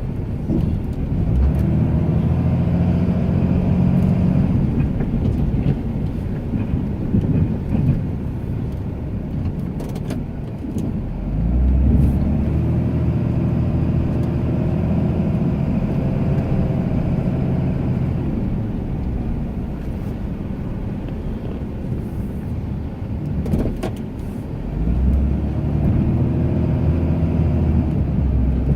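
Ram 2500 pickup's engine working under load while plowing snow, revving up and easing back in three long surges as the truck pushes and backs off, with a couple of sharp knocks in between.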